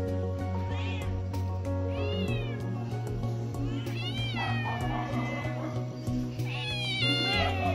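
A cat meowing several times, a second or two apart, each meow rising and then falling in pitch, over background music with a steady bass line.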